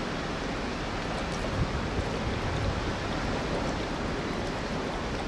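Steady rushing noise of a stationary EMU800 electric multiple unit, the sound of its ventilation and air-conditioning equipment running while it stands. A few low thumps come between about one and a half and three seconds in.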